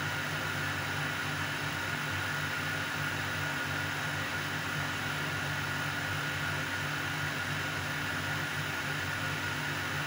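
A steady, unchanging hiss with a low hum underneath and a faint high tone; no separate calls, knocks or other events stand out.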